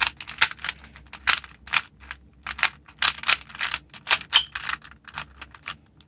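A 3x3 plastic Rubik's cube having its layers turned quickly by hand: an irregular run of sharp clicks and clacks, several a second.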